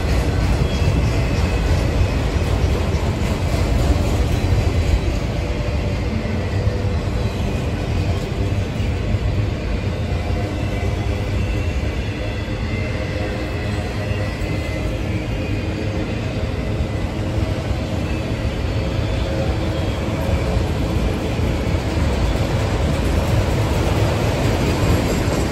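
Freight train of autorack cars rolling past: a steady rumble of steel wheels on the rail, heaviest in the low end, running evenly without a break.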